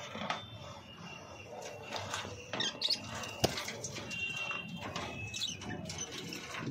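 Pet cockatiels calling in short chirps, with a held whistle a little past the middle, and a single sharp click about three and a half seconds in.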